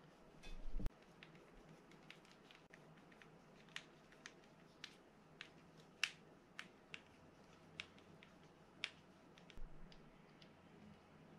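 Faint, sharp clicks and taps at irregular intervals from a small screwdriver and metal parts working on a Shimano Baitrunner 12000D spinning reel during reassembly, with a louder knock about a second in.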